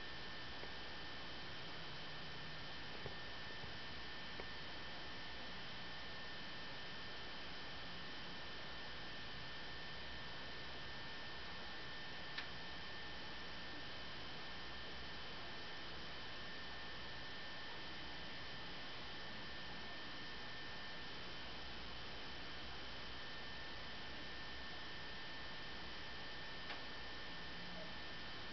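Steady electrical hum and hiss with two thin, unchanging high tones, broken only by a few faint clicks; no sound from the scene itself comes through.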